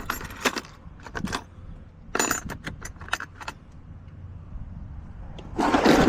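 Metal keys jangling and clinking in short bursts, as a set of bump keys is sorted through, with a louder rustling clatter near the end.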